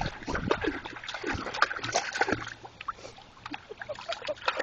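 Water splashing and sloshing in irregular strokes as a dog paws and digs in a water barrel, trying to get floating balls out.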